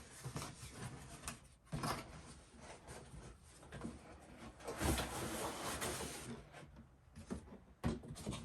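Unboxing handling of cardboard and paper packaging: scattered knocks and taps, with a longer rustling, sliding scrape about five seconds in.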